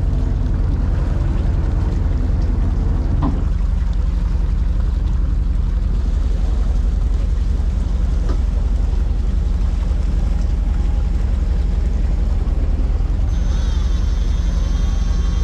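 Fishing boat's engine running at idle, a steady low rumble. About 13 seconds in, a higher-pitched tonal sound with several wavering lines joins it.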